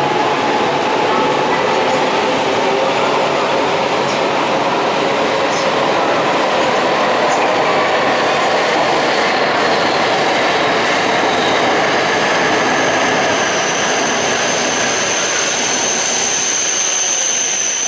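E6 series Komachi Shinkansen, coupled to an E5 series Hayabusa, pulling into the station platform and slowing, a loud steady rushing of the train. A high, steady squeal joins about two-thirds of the way through.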